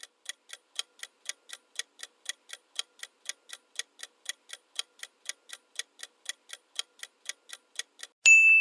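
Clock-ticking sound effect of a quiz countdown timer: even tick-tock, about four ticks a second, alternating louder and softer. Near the end it stops and a bright ding rings out and fades as the countdown runs out.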